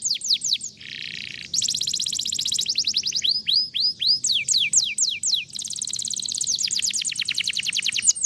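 Domestic canary singing: phrases of repeated down-slurred whistles, a short buzzy note about a second in, and fast rolling trills. It is a lure song played to get a reluctant canary to sing.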